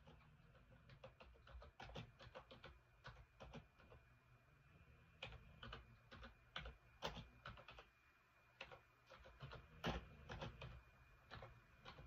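Faint, irregular light clicks and taps, coming a few at a time with short gaps, over a faint low hum.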